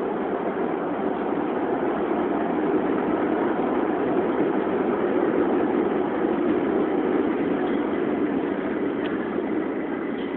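Steady noise of a subway train standing at an underground platform with its doors open, swelling slightly midway and easing near the end.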